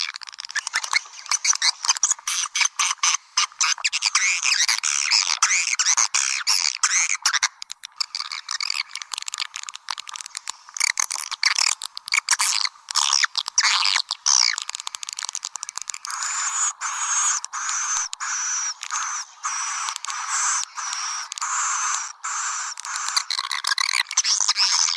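Swiftlet calls of the kind played to lure swiftlets into a nesting house: dense, high-pitched twittering with rapid clicking trills. About sixteen seconds in, the calls turn into longer, steadier twitters.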